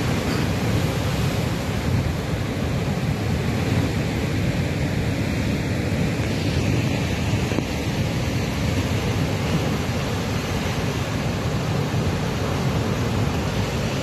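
Heavy Atlantic surf breaking over rock ledges and churning into foam: a steady rush of water with no let-up, with wind buffeting the microphone.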